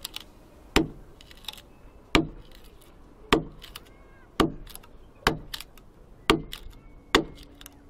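Knife blade chopping into an old wooden board, about seven sharp strikes roughly a second apart, each with a short ring and splintering the wood.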